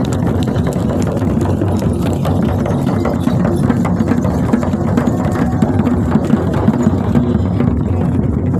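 Shamans' frame drums beaten rapidly and continuously, merging into a dense, steady drone of beats.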